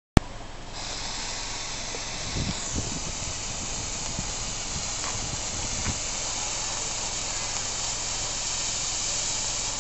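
Handheld firework wand (魔女棒) burning with a steady, loud hiss as it sprays sparks, building up within the first second, with a few faint low knocks a couple of seconds in and again near six seconds.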